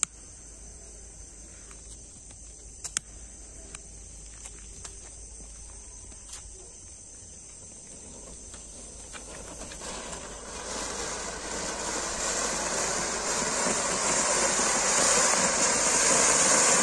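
Cone firework fountain (anar) hissing as it sprays sparks. The hiss builds from about eight seconds in and is loudest near the end. Before it, crickets chirp steadily and there are a few sharp clicks.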